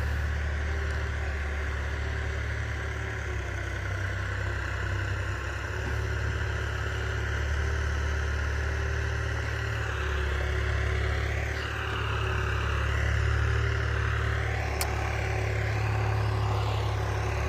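New Holland 3600-2 tractor's three-cylinder diesel engine running steadily as it pulls an implement across a tilled field.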